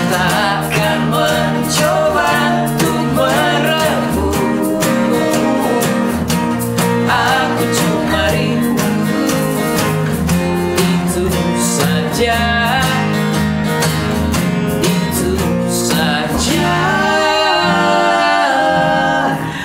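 Acoustic pop song played live: three acoustic guitars strummed steadily under a male lead vocal. About three-quarters of the way through, the strumming drops away and several male voices sing sustained harmonies together.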